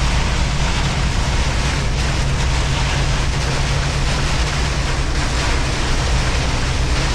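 Heavy rain pounding on a semi truck's cab and windshield, a steady loud hiss, with the truck engine's low drone running underneath.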